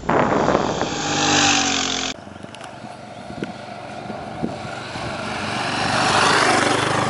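Dual-sport motorcycle engines. For about two seconds an engine drops slightly in pitch. After a sudden cut, a motorcycle rides toward the microphone, growing louder until it passes close near the end.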